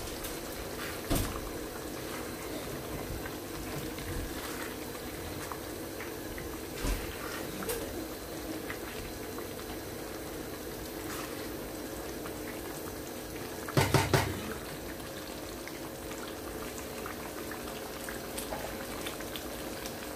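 Tomato and vegetable stew bubbling at a simmer in a stainless steel pan on a gas hob, a steady soft bubbling with scattered small clicks. About fourteen seconds in, a short, loud clatter of knocks stands out.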